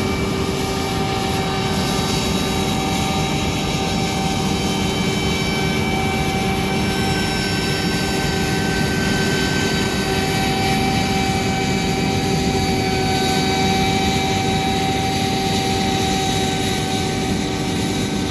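Heavy farm machine's diesel engine running steadily at working speed, a constant drone with a few steady whining tones over it.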